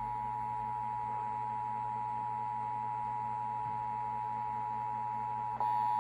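Emergency Alert System attention signal: a steady two-tone beep held without a break. Near the end there is a click and it gets a little louder.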